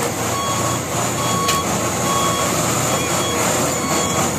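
A tanker truck's reversing alarm beeping steadily, about one and a half beeps a second, over the low rumble of the truck's engine as it backs up.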